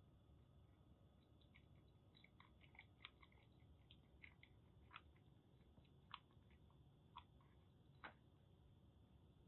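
A kitten lapping milk from a bowl: faint, irregular small wet clicks of its tongue, stopping near the end as it lifts its head from the bowl.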